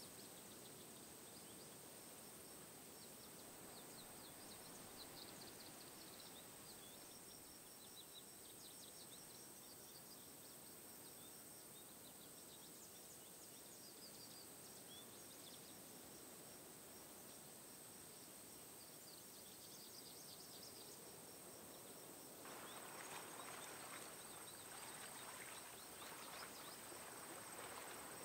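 Faint outdoor nature ambience: a steady hiss with a thin, steady high tone and scattered small high chirps. About 22 seconds in, a slightly louder, crackly noise sets in.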